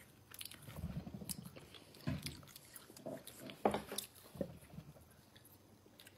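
Chewing of a hard, chewy gummy candy close by: soft wet mouth clicks and smacks, with a few brief hum-like voice sounds.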